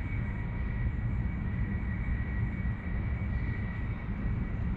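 Steady low outdoor rumble with a faint, thin high whine held over it, unchanging throughout.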